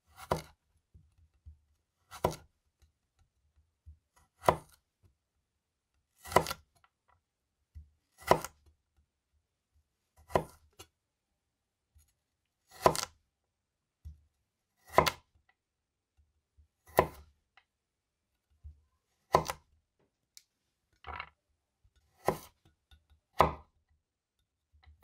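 Chef's knife slicing down through raw carrot and striking a wooden cutting board, one deliberate cut about every two seconds as carrot planks are cut into julienne sticks. The cuts come a little faster near the end, with faint taps of the pieces being handled between them.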